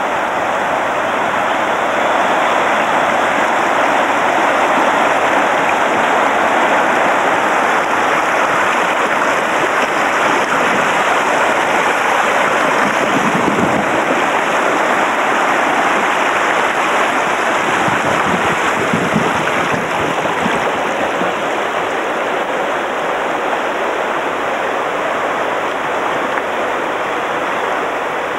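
Shallow river rapids rushing over a stony bed: a loud, steady rush of water.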